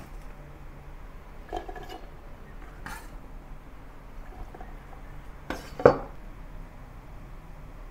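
Chef's knife scraping chopped shallots and garlic across a wooden cutting board and into a plastic food processor bowl, with a few light knocks and clinks. The loudest knock, a little before six seconds in, is the metal knife set down on the board.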